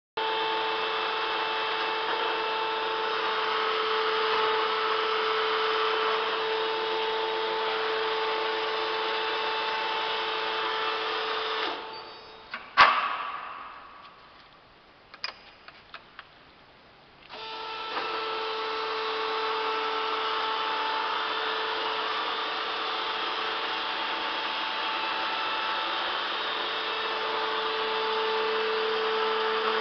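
Hydrogallic copy turning lathe running with a steady hum. About twelve seconds in it runs down, a sharp clack and a few light clicks follow, and about five seconds later it starts up again and runs steadily to the end.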